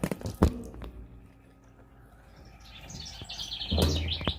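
A few sharp clicks, then a bird chirping in a quick run of high notes from about three seconds in.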